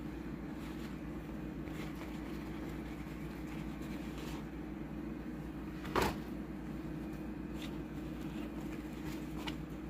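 Paper towels being handled and wrapped around raw potatoes: soft, scattered rustles and one sharper knock about six seconds in, over a steady low hum.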